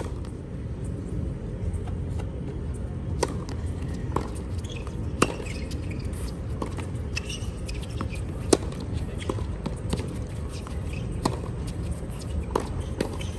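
Rackets striking a tennis ball back and forth in a doubles rally: a series of sharp pops spaced roughly a second apart, two of them louder than the rest, over a steady low background hum.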